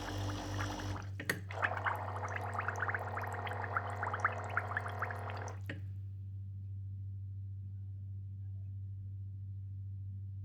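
Nespresso Creatista Plus in its descaling cycle: the pump runs and hot water sputters from the outlets into the container with crackling pops. It cuts off sharply with a click about six seconds in, leaving a low steady hum.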